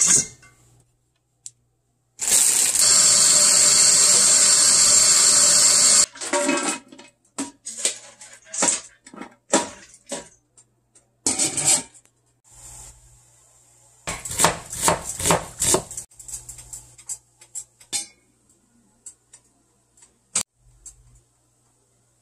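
Kitchen tap water running for about four seconds onto soybean sprouts in a stainless steel colander. Then comes a series of clinks and knocks from the stainless steel colander and steamer pot, with a quick run of metal clatter about two thirds of the way through.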